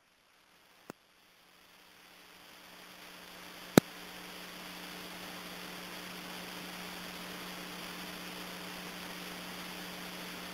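Near silence for a couple of seconds, then a recorded radio channel's steady static hiss with a low mains hum between transmissions. One sharp click comes about four seconds in.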